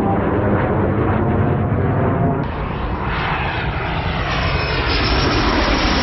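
Dassault Mirage F1 fighter jets' SNECMA Atar turbojets running. First comes a steady jet rumble from a pair passing high overhead. After a cut about two and a half seconds in, a single Mirage F1 on final approach with its gear down gives louder, closer jet noise with sweeping whine tones, growing louder near the end.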